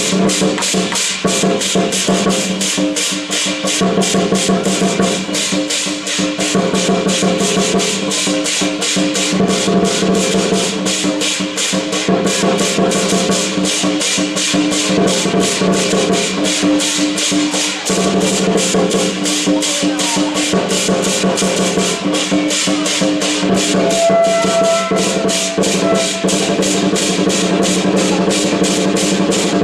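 Traditional percussion music for a dragon dance: a fast, steady beat of drums with jangling metal percussion, and sustained melodic notes held over it.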